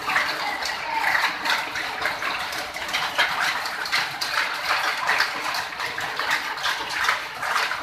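Hail and rain falling on corrugated metal roofing and a concrete floor: a dense, steady patter of many small hits.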